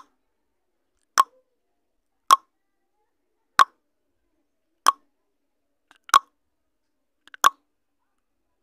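Countdown timer sound effect ticking: short, sharp clicks about one every 1.2 seconds, one per number counted down, with silence between.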